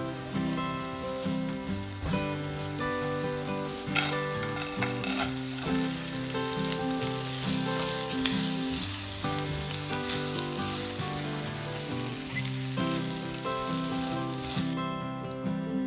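Rice and chopped onion sizzling in hot oil in a nonstick frying pan as they are stirred with a plastic spoon to coat the grains, with a brief louder rush about four seconds in as the rice goes into the pan. The sizzling drops away near the end, with light background music running under it.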